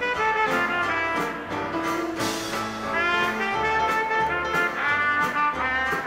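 A 1920s–30s style dance orchestra playing jazz, with trumpets and trombones carrying the melody over a steady beat.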